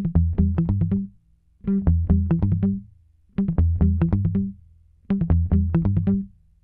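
Intro music: a low, bass-heavy riff of quick notes played in four short phrases, each about a second long, with brief pauses between them.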